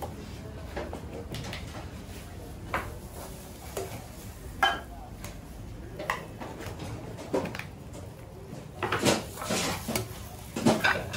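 A steel ladle clinking and scraping against a steel bowl and tin cans as lentil curry is spooned into the cans. It gives scattered sharp clinks, coming faster and louder near the end.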